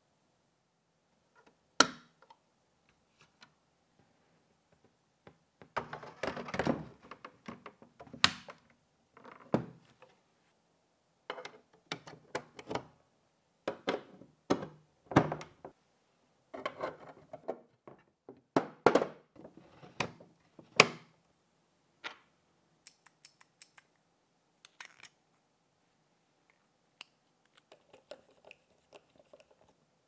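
Hands fitting the metal parts of an open-frame PC case together: aluminium blocks and steel rods give a string of sharp clicks, knocks and light clinks, thickest in the middle and thinning out near the end.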